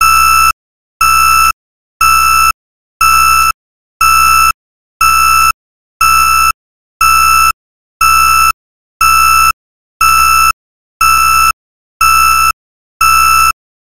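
Digital countdown-timer alarm beeping to signal that time is up: a loud half-second beep of one steady tone about once a second, fourteen in a row, starting just as the countdown hits zero.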